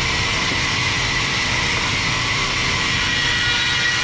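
Sawmill band saw running steadily: a loud, even mechanical hiss with a steady high tone over a low hum.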